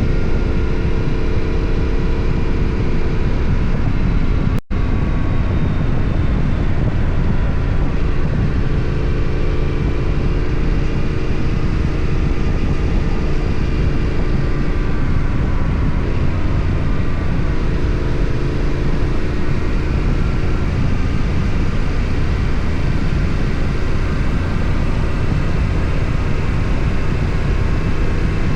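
Yamaha Ténéré 700's parallel-twin engine and exhaust under way, its pitch rising and falling as the bike speeds up and slows through the bends, over a steady low rumble of wind and road noise. The sound cuts out for an instant about four and a half seconds in.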